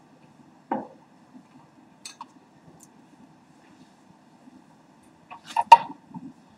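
Handling noise over a steady low room hum. A dull knock comes under a second in, like a drinking glass set down. Near the end a cluster of sharp knocks and rubbing, the loudest sounds, comes from the headset microphone being touched and adjusted.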